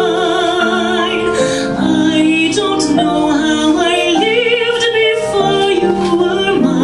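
A woman singing a slow love ballad with vibrato on long held notes, with piano accompaniment.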